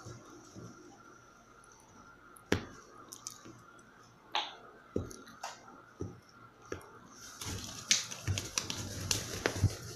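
Two hairless cats play-fighting on a bed: scattered soft taps, thumps and rustles of paws and bodies on the bedding, sparse at first and busier near the end.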